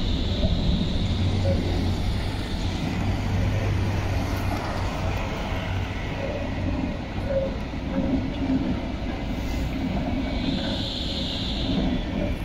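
City trams running over street track: a steady rumble of wheels on rails and traction gear, with a higher hiss building up about ten seconds in.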